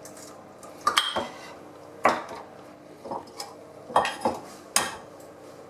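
Eggs being tapped and cracked against the rim of a glazed earthenware mixing bowl: a series of sharp knocks and clinks, roughly one a second, some in quick pairs.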